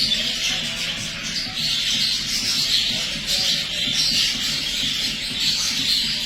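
Exhibition budgerigar chick calling: a continuous harsh, hissy chatter that swells and fades in repeated pulses about every half second.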